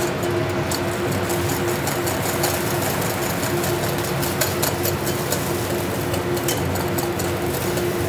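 Wire whisk beating zabaione in a metal bowl over a gas flame, clicking rapidly and unevenly against the bowl as the egg yolks are whisked to thicken. Underneath is the steady hum of a commercial kitchen's extractor hood and gas burner, which is the loudest part.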